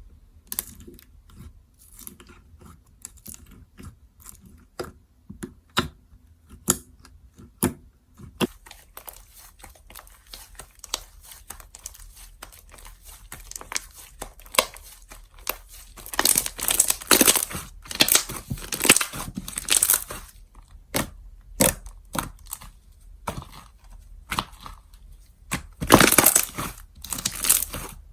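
Slime being squished, stretched and poked by hand, giving quick sticky clicks and crackling pops. The crackling grows thicker and louder about sixteen seconds in and again near the end.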